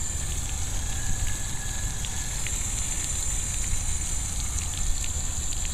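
Outdoor shower running: a steady hiss of falling water with small scattered drips and splashes, over a steady low rumble.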